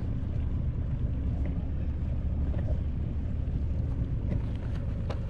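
Steady low engine rumble with a constant pitch, with a few faint clicks near the end.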